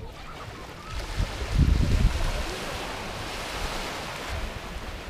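Small sea waves breaking on a sandy beach and washing up the shore as a steady rushing hiss that swells in the second half. Wind buffets the microphone with low rumbles, loudest between about one and two seconds in.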